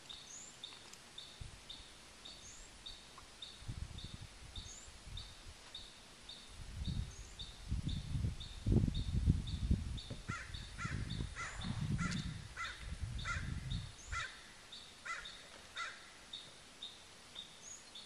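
Birds calling: a short high chirp repeats steadily about three times a second. From about ten seconds in, a series of about ten harsh calls follows, roughly half a second apart. A low rumbling noise swells through the middle and is the loudest sound.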